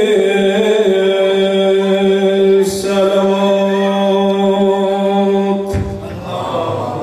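A man chanting Pashto verse unaccompanied into a microphone, holding one long steady note. The note breaks briefly about three seconds in and ends near six seconds, after which his voice turns less steady and more like speech.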